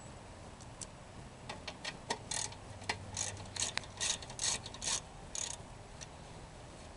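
Hand tools working on a lawn mower engine during disassembly: scattered metal clicks, then a run of short rasping strokes about two a second, stopping about five and a half seconds in.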